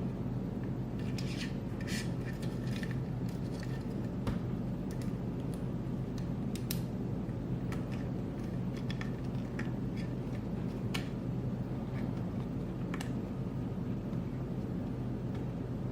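Scattered small plastic clicks and rubbing as zip ties are threaded through the cutouts of a 3D-printed quadcopter frame and looped around, over a steady low hum.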